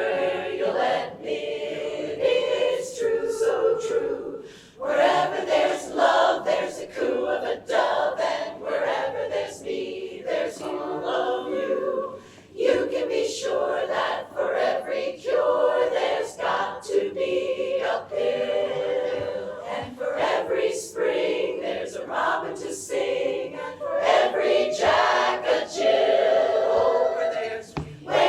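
Women's barbershop chorus singing a cappella in close harmony.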